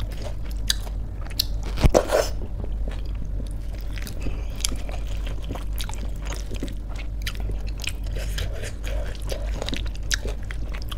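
Close-miked chewing and wet mouth clicks of someone eating soft khichdi by hand. Fingers mix the rice in a steel plate, and there is one louder click about two seconds in.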